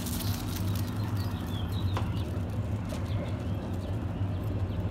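Steady low outdoor hum with a few faint, brief high chirps about a second and a half in.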